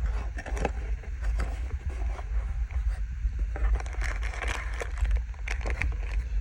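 Hands unpacking a cardboard box: packaging rustling and scraping, with irregular light clicks and knocks, busiest in the second half, over a steady low rumble.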